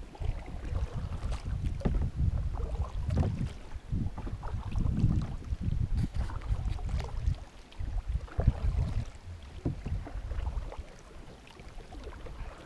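Wind buffeting the microphone as an uneven low rumble, with scattered knocks and handling bumps against a small boat's hull.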